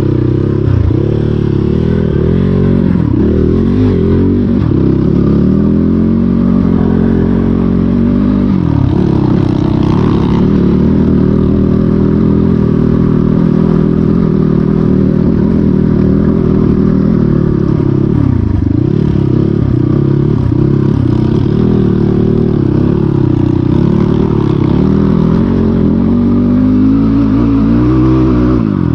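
Dirt bike engine being ridden under constantly changing throttle, its pitch rising and falling over and over, with deep drops in revs about a third and about two-thirds of the way through.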